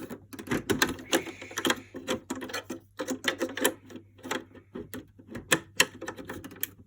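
Rapid, irregular plastic clicks and rattles from the toy Hoover washing machine being handled, as its broken-off front panel is pushed back into place by hand.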